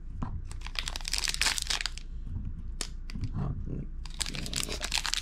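Foil trading-card pack wrapper crinkling as it is handled in the hands, dense crackles at first, quieter with a few sharp clicks in the middle, then crinkling again near the end.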